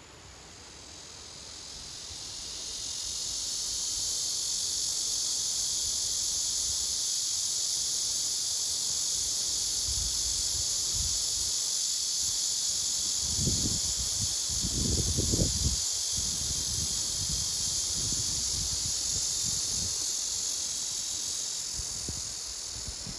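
Cicadas singing in a dense, steady high-pitched buzzing chorus that swells in over the first few seconds. A few low rumbles come a little past the middle.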